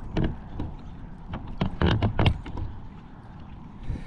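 Water splashing and sloshing around a kayak, with a few sharper splashes about two seconds in over a steady low rumble.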